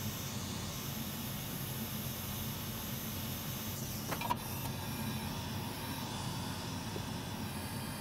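Steady hum and hiss of workbench background noise, like a small fan running, with one brief click about four seconds in.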